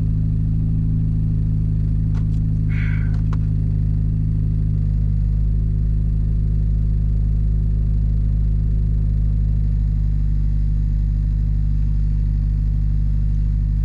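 Turbocharged Honda Civic Si four-cylinder engine idling steadily while it warms up; the owner believes it is running lean.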